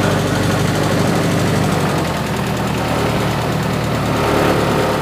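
Longtail boat's engine running steadily under way, loud and even, with a hiss over it.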